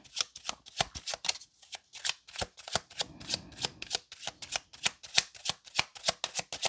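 A deck of tarot cards being shuffled by hand, the cards flicking and slapping together in a quick, irregular run of clicks, several a second.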